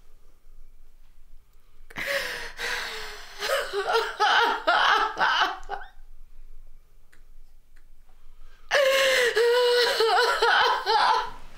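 A woman's wordless, high-pitched vocal outbursts, twice: first a run of short broken pulses about two seconds in, then a long wavering cry near the end.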